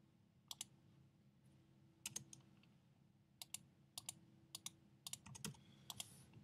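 Faint computer keyboard and mouse clicks: sharp clicks, mostly in pairs, a few at first and coming more often in the second half, over a faint steady hum.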